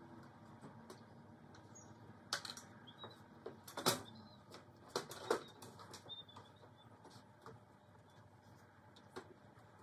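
Scattered knocks and clanks from an aluminium stepladder being moved and climbed, the loudest about four seconds in, with faint bird chirps in the background.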